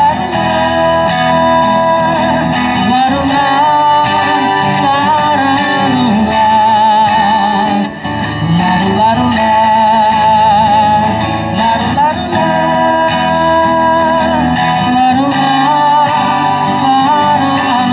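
A pop song with guitar and wordless singing, its held notes wavering with vibrato.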